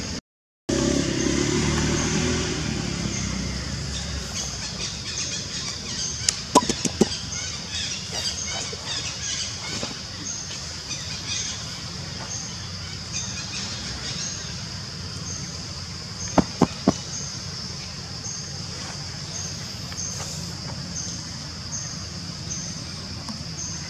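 Outdoor forest ambience: a steady high buzz that pulses about once every three-quarters of a second, with a low rumble in the first few seconds. Two quick runs of three sharp clicks stand out, one about a quarter of the way in and one about two-thirds of the way through.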